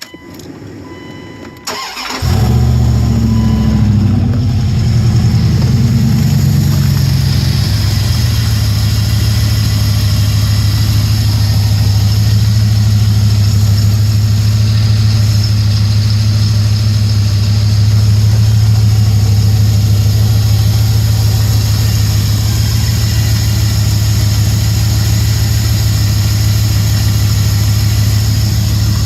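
1999 Dodge Ram 1500's 5.9 Magnum V8 starting about two seconds in, running at an uneven fast idle, then settling to a steady idle about eight seconds in. No knock is heard: the cold knock the owner suspects is lifter or valve noise, quieted by an oil treatment.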